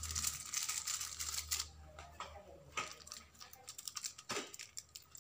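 Small plastic sachet of vanilla powder crinkling and rustling as it is handled and shaken out over a stone mortar, followed by scattered light clicks and crackles.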